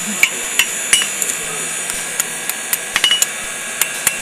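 Blacksmith's hammer striking hot steel on an anvil: about ten ringing blows at an uneven pace.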